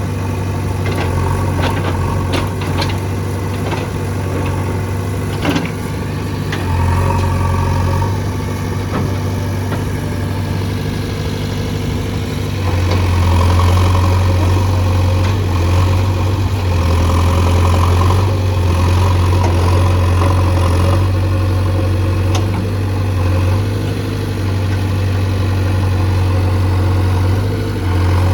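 JCB backhoe loader's diesel engine running steadily as the machine digs, its note growing louder under load about seven seconds in and again around thirteen seconds. Short knocks and clicks come in the first few seconds.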